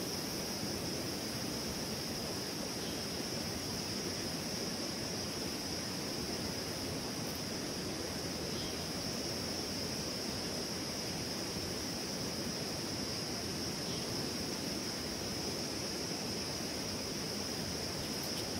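River water flowing steadily, heard as an even rushing, under a continuous high-pitched insect drone.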